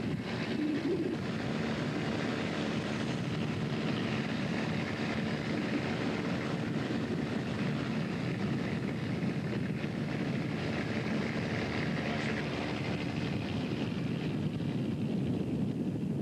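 Steady drone of a fishing boat's engine, with the sea washing along the hull.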